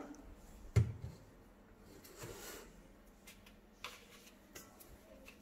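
Plastic sieve of flour being shaken and tapped by hand over a steel bowl to sift it: one sharp knock about a second in, then soft rustling and a few light taps.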